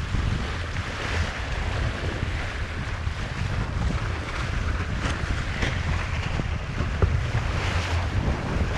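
Wind buffeting the microphone of a boom-mounted camera on a windsurfer under sail, a steady low rumble, with water rushing and splashing along the moving board.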